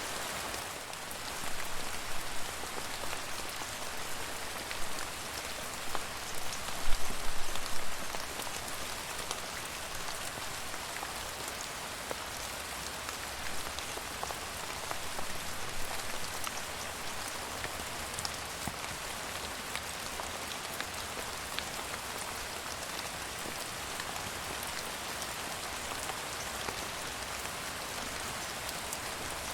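Steady rain falling on a surface, a continuous hiss with scattered individual drop hits, swelling louder for a moment about two seconds in and again about seven seconds in.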